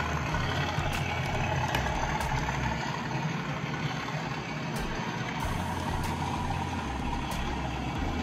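Model railway freight train running past on the layout track: a steady rumble from the locomotive and rolling wagons, with scattered clicks of wheels over rail joints.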